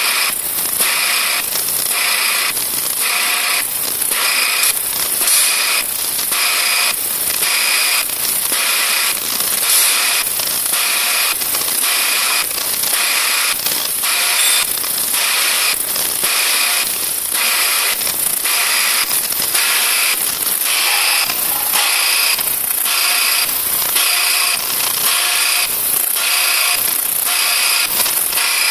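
Ultrasonic vibrating sieve running: a steady, loud, high-pitched mechanical hiss and hum that pulses regularly about twice a second.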